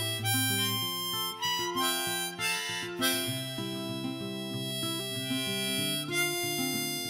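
Instrumental break in a folk-style song: a harmonica melody over guitar.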